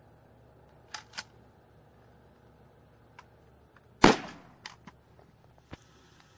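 A single gunshot from a long gun about four seconds in: one sharp crack with a short ringing tail. Two sharp clicks come about a second in, and a few lighter clicks follow the shot.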